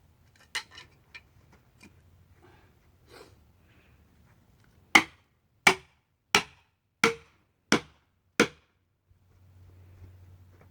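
A tool striking wood: a few light knocks, then six sharp, loud blows at an even pace, about one every 0.7 seconds.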